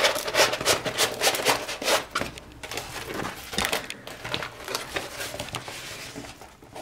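A rolled diamond painting canvas being handled: crinkling and rustling with quick clicks, busiest in the first two seconds and then sparser and quieter.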